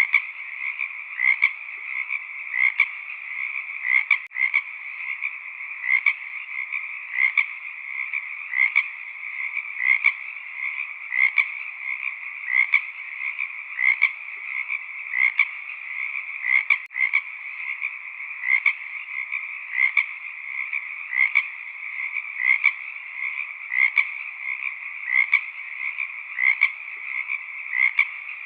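A dense chorus of frogs croaking without a break, with a louder call repeating about every second and a half.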